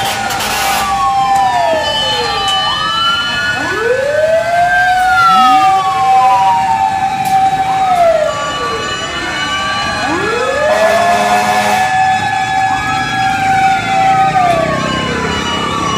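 Several fire truck sirens wailing at once, loud and overlapping, in slow wails that rise, hold and then fall, with steadier higher tones over them.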